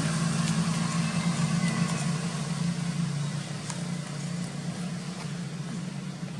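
Steady low hum of an idling engine, with a few faint clicks.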